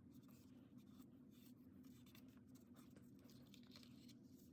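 Near silence: faint rustling and light taps of cardstock being handled and pressed down, over a low steady room hum.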